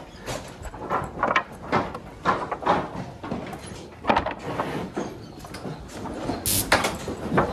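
Cattle being worked in a corral chute: irregular knocks, bangs and scuffling from hooves and the chute's gates and boards, with a brief hiss about six and a half seconds in.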